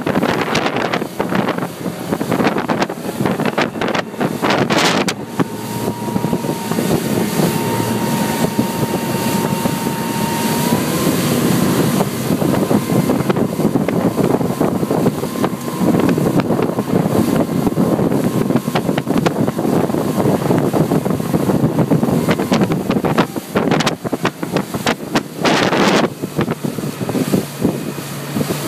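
Wind buffeting the microphone aboard a motorboat running at speed, with the boat's engine and rushing water underneath in a continuous, gusting roar.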